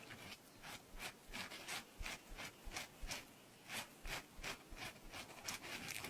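Stiff-bristled brush rubbing in short, repeated strokes, about two or three a second.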